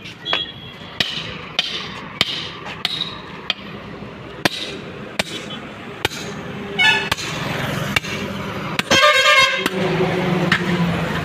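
Heavy vehicle engine running under scattered sharp knocks and clanks, with a short horn honk about nine seconds in; the engine note grows louder after the honk.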